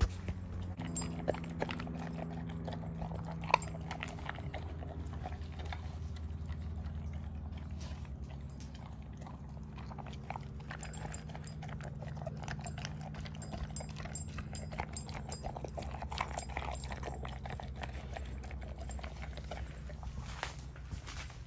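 Dogs eating dog food from a stainless steel bowl: wet chewing and crunching with many small irregular clicks, and a sharp clink against the metal bowl about three and a half seconds in.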